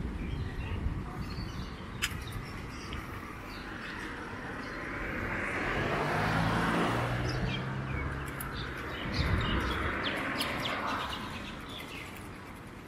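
A car passes the bicycle, its engine and tyre noise swelling to a peak about six seconds in and fading, with another swell near ten seconds, while small birds chirp.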